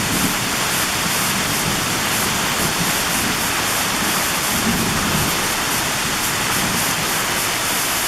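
Heavy thunderstorm downpour: a steady, dense hiss of pouring rain.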